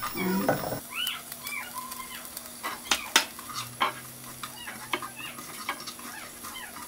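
Chopped aromatics sizzling and crackling as they drop into hot coconut oil in a pot, with sharp clinks of a metal utensil against the pot, the loudest about three seconds in.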